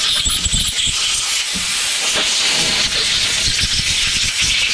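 Compressed air from a blow gun hissing steadily through the passages and jets of a Honda GX390 carburetor, with irregular low gusty rumbles from the air blast. It is the air blow-out of the orifices after ultrasonic cleaning, clearing gum and debris from the carb.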